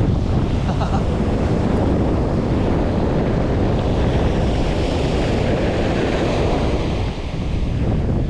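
Wind buffeting the microphone over the wash of breaking ocean surf: a steady, loud rushing noise.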